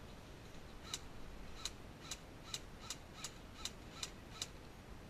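Airsoft gun firing about nine single shots in an uneven semi-auto series, each a short sharp snap about half a second after the last. They start about a second in and stop near the end, and sound faint and some way off.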